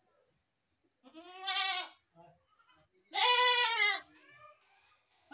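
A goat bleating twice, each bleat about a second long and arching up and then down in pitch. A third bleat starts at the very end.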